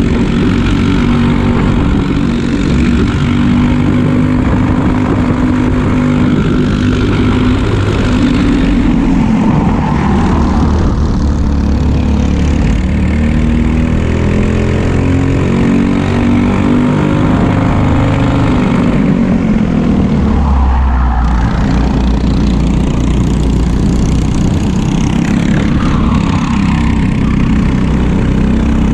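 Briggs & Stratton LO206 four-stroke single-cylinder kart engines at racing speed, heard onboard from close behind another kart. The engine pitch climbs and falls repeatedly with speed through the corners, with a marked dip about twenty seconds in.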